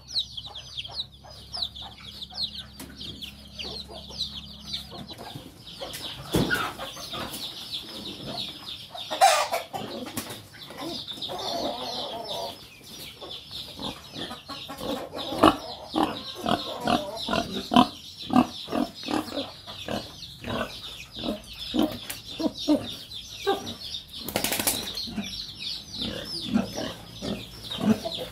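A brood of chicks peeping constantly in rapid, high chirps. From about six seconds in, a pig grunts and snuffles as it feeds, in short irregular sounds. There are a couple of brief louder rushes of noise, about nine seconds in and again near the end.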